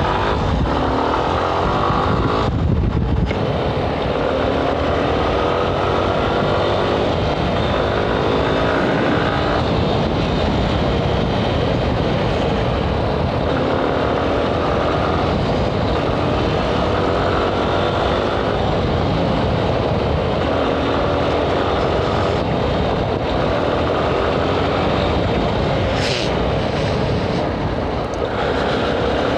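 Yamaha Ténéré 250's single-cylinder four-stroke engine running under way. Its pitch rises and falls again and again as the rider works the throttle and gears.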